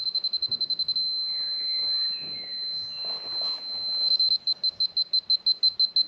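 Laser level receiver on a grade rod sounding a high steady tone, broken into rapid beeping for the first second and again from about four seconds in. The steady tone marks the receiver sitting on grade in the laser beam, the beeping that it is slightly off it.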